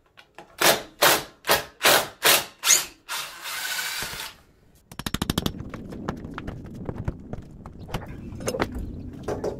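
Six sharp knocks about 0.4 s apart, a second of steady noise, then a fast rattle of clicks followed by scattered knocks and scrapes as an aluminium window insert is worked loose and pried out of its frame.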